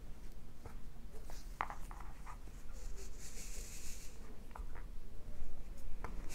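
Soft rubbing and scattered light clicks of yarn and a wooden knitting needle being handled, with a brief scratchy hiss about three seconds in as the waste yarn is drawn out through the stitches.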